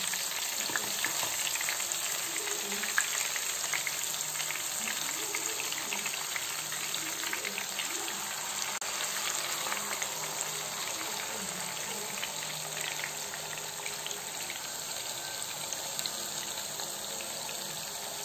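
Masala-coated catla fish shallow-frying in hot coconut oil in a pan: a steady sizzle full of fine crackles that eases a little toward the end.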